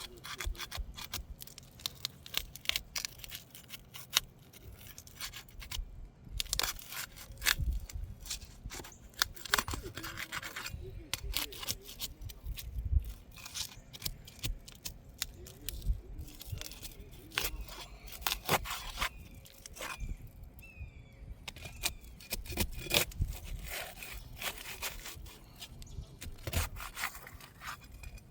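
Irregular scraping, rubbing and sharp clicks of hands and a tool working on asphalt roof shingles.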